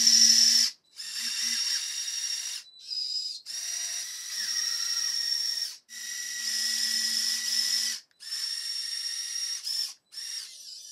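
High-pitched whine of small electric motors driving homemade peristaltic pumps in a Lego hydraulic excavator, as the bucket and arm cylinders work. The whine starts and stops every second or two as the controls are worked.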